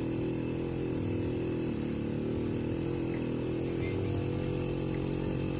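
Motorcycle engine of a Philippine tricycle running steadily at low speed, heard from the sidecar, with a slight dip in engine pitch about two seconds in.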